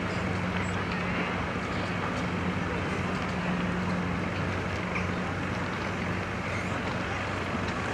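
A steady low engine hum, one unchanging pitch, over an even wash of outdoor noise.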